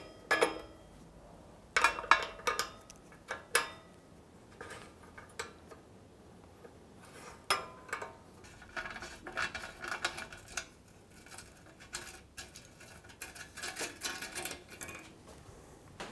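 Metal hand tools clinking against the Moto Guzzi Breva 750's muffler mounting hardware while the muffler is being unbolted: scattered sharp metallic clinks, with quicker runs of clicking near the middle and toward the end.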